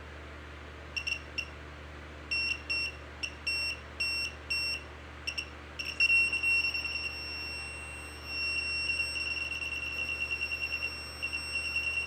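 Handheld RF detector sounding its alert tone, a single high-pitched note. It gives irregular short beeps for the first few seconds, then about halfway through goes over to a near-continuous tone, signalling a strong reading that the user takes for a high level of radiation around him.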